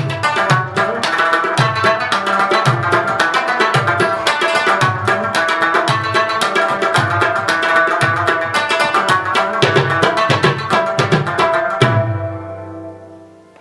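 Instrumental background music with a steady drum beat under a melody. It stops about twelve seconds in and rings away into quiet near the end.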